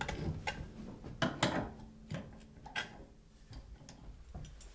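Irregular clicks and knocks, the loudest pair coming close together about a second and a half in, then fewer and fainter.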